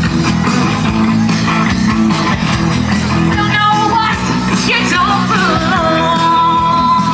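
Loud rock music with electric guitar. A sung melody comes in about three seconds in and ends on a long held note.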